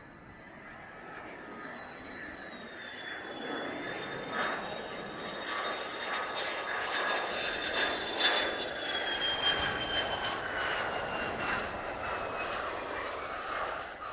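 Mitsubishi F-2 fighter's single F110 turbofan engine as the jet approaches and passes. Its rush grows louder toward the middle, with a high whine that slowly falls in pitch.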